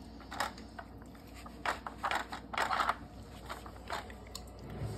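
Dog working a plastic puzzle feeder with its nose: scattered clicks, knocks and scrapes of the plastic lids and wheel shifting, with a busier flurry of clattering about two to three seconds in.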